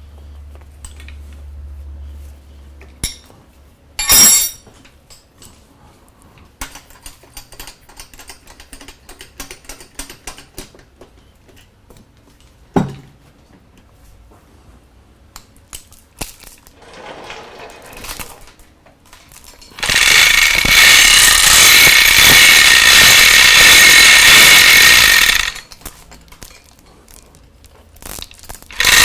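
Metal shop work at a lathe: several sharp clanks and knocks with small scattered clicks. About two-thirds of the way in comes a loud, dense mechanical rattle lasting about five seconds, which starts again near the end.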